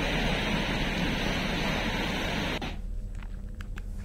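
Steady rushing of a river in spate, a loud even roar of floodwater that cuts off abruptly about two and a half seconds in, leaving a much quieter background with a few faint ticks.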